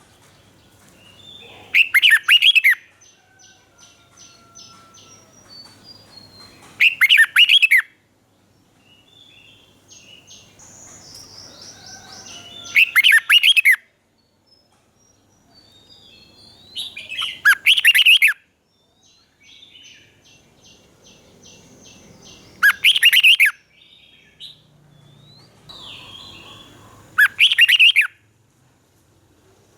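Red-whiskered bulbul singing: six loud, short song phrases about five seconds apart, with softer chirps and quick ticking notes between them. It is a lure song of the kind played to caged bulbuls to excite them or teach young birds.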